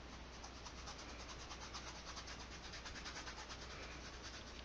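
Bristle paintbrush scrubbing oil paint onto a canvas in quick, faint back-and-forth strokes.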